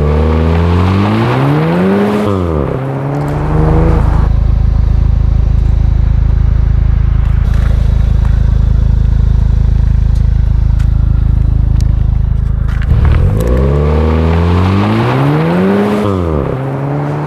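VW Golf R exhaust, with the resonator deleted by a CTS Turbo delete pipe, heard at the tailpipes. It revs up and back down once, idles with a steady deep note for about nine seconds, then revs up and down again near the end.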